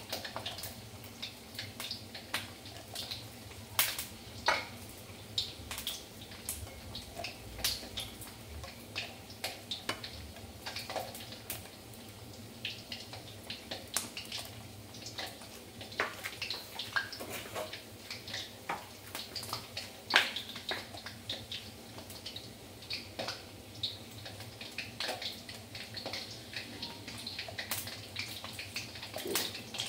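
Hard-boiled, peeled eggs deep-frying in hot oil in a wok: a steady sizzle with sharp pops and spatters at irregular intervals, the loudest about 20 seconds in.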